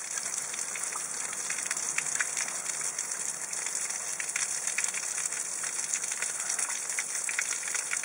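A steady rushing hiss with many fine crackles and ticks running through it.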